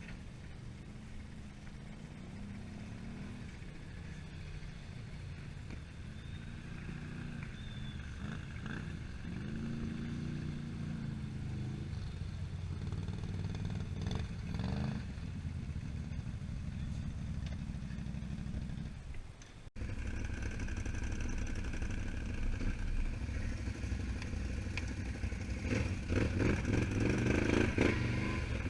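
ATV engines running, the pitch rising and falling a little as the machines ride. About two-thirds through the sound cuts to louder engine noise with clattering that builds toward the end.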